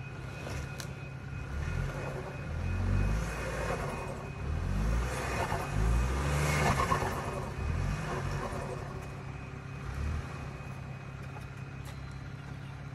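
Ford Bronco Sport's engine revving up and down in several surges under load as it is backed off a rock ledge, with tyre and gravel noise loudest a little past the middle before it settles back to idle.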